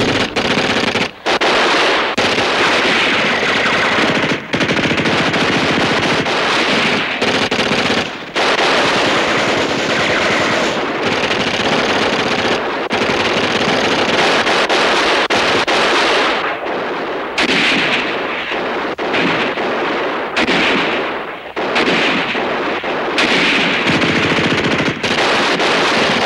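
Sustained gunfire, mostly machine-gun fire: rapid shots running almost without pause, with a few brief lulls.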